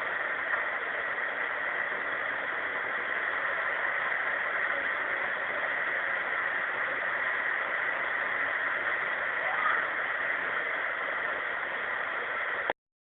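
Steady hiss of background noise on a voice-recorder recording, with one faint brief sound a little before ten seconds in; it cuts off abruptly near the end.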